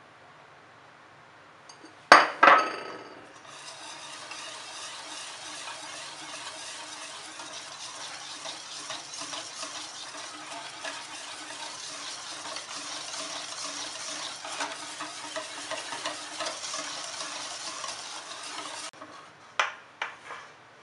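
Wire whisk beating crepe batter in a stainless steel mixing bowl, mixing in melted butter: a steady scratchy swish lasting about fifteen seconds. Two sharp knocks come about two seconds in, before the whisking starts, and a couple more near the end after it stops.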